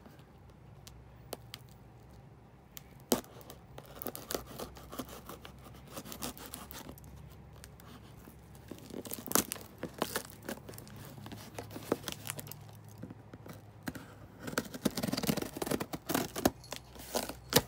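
Packing tape being cut and torn off a cardboard shipping box, with scattered clicks, scrapes and crinkles of cardboard and packaging being handled. The tearing and rustling is busiest about nine seconds in and again near the end.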